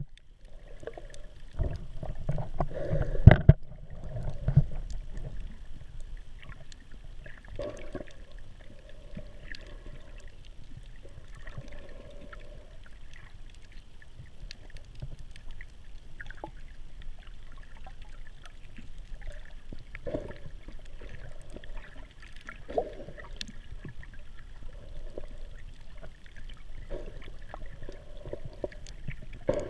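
Muffled underwater water movement heard through a camera held just below the surface, with a loud rumbling knock about three seconds in and a softer swell of sloshing every few seconds.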